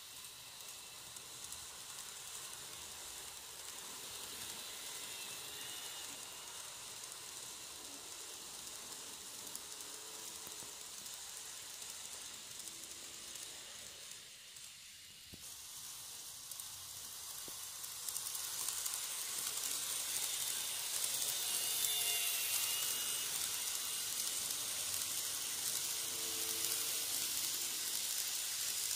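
N gauge model train (651 series coupled to an E353) running on sectional track: a steady hissing rush of wheels on rails with a faint motor whine. The sound dips briefly about halfway, then grows louder for the last third as the train runs close by.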